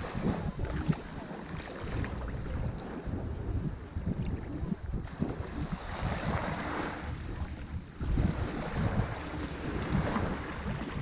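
Ocean waves breaking and washing on a shore, with the surf swelling about six seconds in and again near the end, over wind buffeting the microphone.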